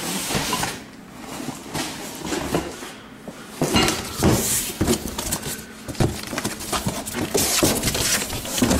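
Handling noise of cardboard boxes and garage clutter being moved and touched: rustling, scrapes and irregular knocks, busiest from about three and a half seconds in.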